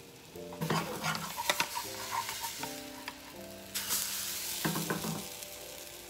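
Pancake batter sizzling in a small nonstick frying pan over a gas burner, with a spatula clicking and scraping under it. About four seconds in, the sizzle swells sharply as the pancake is flipped; its underside has burned, cooked on too high a heat.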